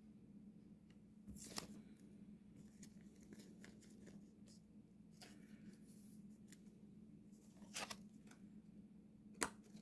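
Near silence with a low steady hum, broken by a few faint rustles and clicks of trading cards and plastic packaging being handled; the sharpest click comes near the end.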